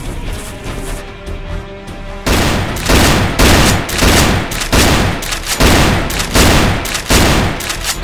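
Rapid gunfire sound effects in repeated bursts, starting a little over two seconds in, over action-film music with held notes.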